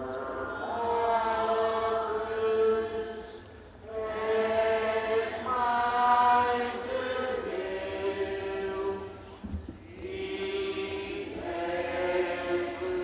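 A group of voices singing a slow religious hymn together in long held notes. The phrases are broken by short pauses about four and nine and a half seconds in.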